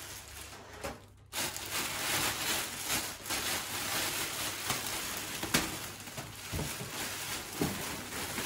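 Packaging around a new kitchen cabinet being handled and crumpled: a dense crackle and rustle with scattered sharp knocks, briefly dropping out about a second in.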